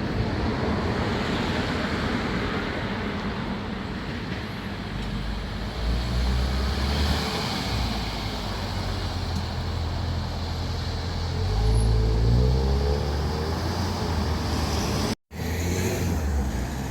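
Car engine and road traffic noise, with an engine revving up as a car accelerates away about twelve seconds in. The sound cuts out for a split second near the end.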